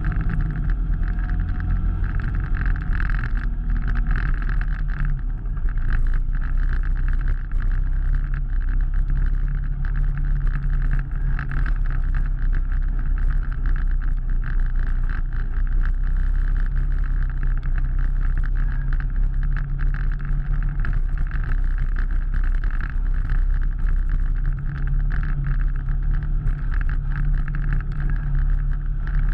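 Engine of an off-road vehicle running steadily while it drives along a muddy, rutted trail, a constant low drone with small rises and falls in pitch.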